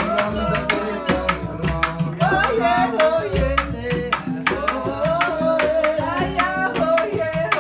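Kora, the West African harp-lute, plucked in quick, continuous runs of notes under a singing voice.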